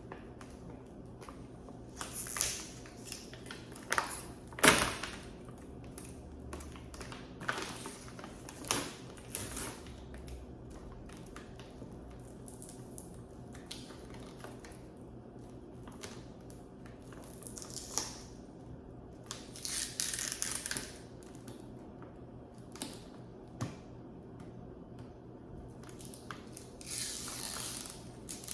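Scattered clicks, knocks and crinkling as a protein powder container is handled and pried at, its lid or seal hard to get open. A sharp knock about five seconds in is the loudest, and there are longer rustles about twenty seconds in and near the end.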